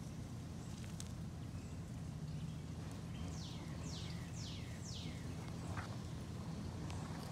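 Outdoor ambience with a steady low hum, and a bird calling a quick run of four falling notes about three seconds in.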